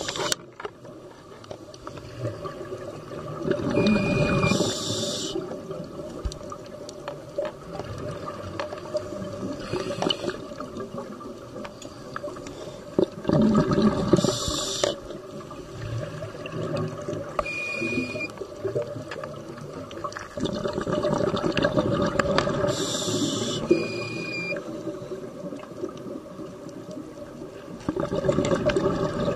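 Scuba breathing heard underwater: about six breaths, each a short hiss from the regulator with a faint whistle and a gush of bubbling exhaust, over a steady watery rumble.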